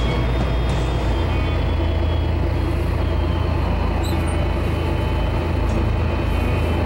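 Pilot boat's engines running steadily while holding the boat against a ship's hull, a loud low hum with water noise; the engine note shifts slightly about a second in.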